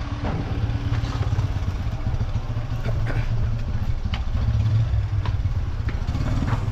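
Motorcycle engine running at low idle, a steady low rumble, with a few light knocks as the bike is moved.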